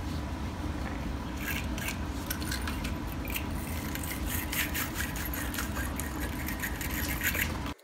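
Wire-bristle battery terminal cleaning brush scraping the inside of a corroded battery cable clamp in quick, repeated strokes, starting a little over a second in, to clean the corrosion off the lead.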